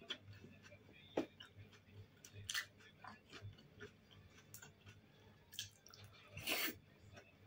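Faint close-up chewing of soft boiled dumplings, with small wet mouth clicks throughout. There are a few louder short mouth noises, the loudest near the end as another dumpling is bitten.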